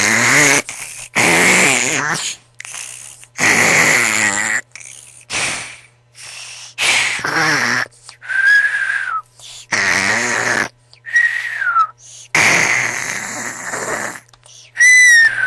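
Loud human snoring, a rattling snore on each breath about every one to two seconds. Three of the breaths carry a thin whistle that falls in pitch.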